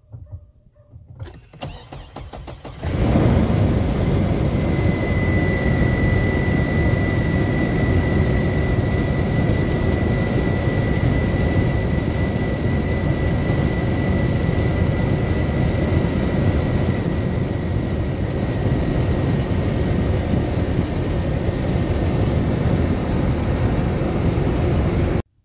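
Hummer H3 engine cranked by its starter, catching about three seconds in, then running steadily at idle with the serpentine belt and clutch fan turning, with a thin steady whine over part of the run. It is the first start after a water pump replacement. The sound stops abruptly near the end.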